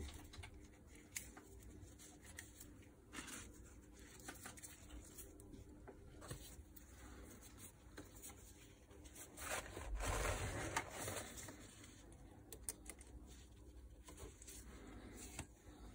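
Faint handling noise of nitrile-gloved hands moving an electric motor's lead wires and crimped push-on terminals: scattered small clicks and rustles, with a louder rustle about ten seconds in.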